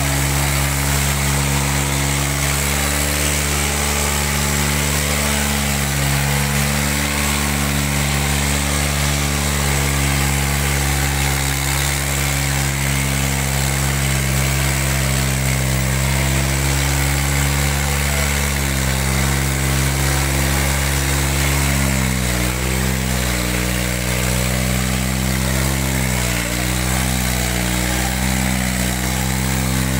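Tractor engine running loud and steady under load, its pitch dipping twice about two-thirds of the way through and then wavering up and down.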